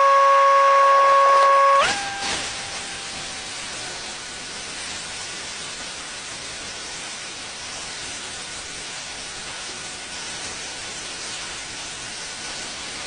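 Sandblaster blasting a steel truck frame: a steady hiss of air and abrasive. It opens with a loud steady whistle that cuts off sharply about two seconds in.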